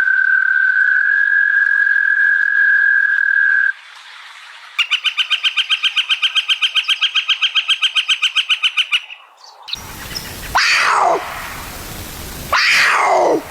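A run of different animal calls: a steady high whistle held for about three and a half seconds, then a fast, even trill of about seven pulses a second lasting about four seconds, then two loud calls that slide steeply down in pitch.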